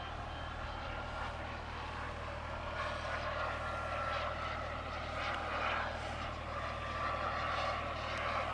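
Jetsmunt TS-166 turbine of a large RC Feibo Viper model jet in flight overhead: a steady rushing jet noise with a high whine that slowly falls in pitch.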